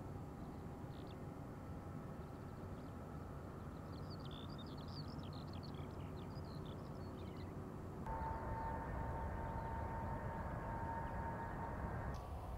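Steady low rumble of jet aircraft engines running, with birds chirping briefly midway. About eight seconds in it steps louder and a steady engine whine comes in.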